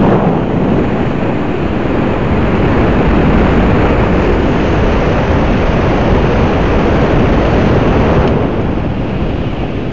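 Wind buffeting the microphone over the rumble of a moving vehicle, a steady loud rush with no clear engine note; it eases slightly near the end.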